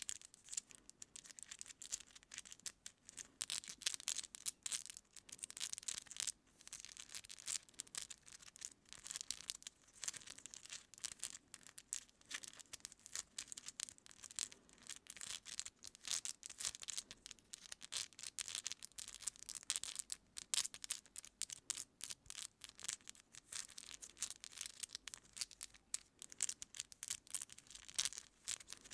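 Long acrylic nails picking and parting through hair at the scalp, close to the microphone: a dense, continuous run of fine crackling and scratching. Two takes of it are layered together.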